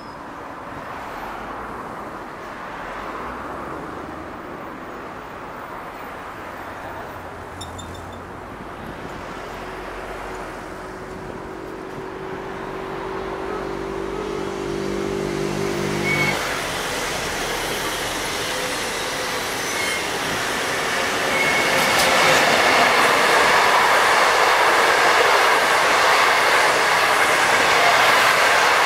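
Locomotive-hauled passenger train of 25G coaches passing close, its running noise building and turning loud about two-thirds of the way in. Earlier a steady low-pitched tone sounds for several seconds and cuts off suddenly.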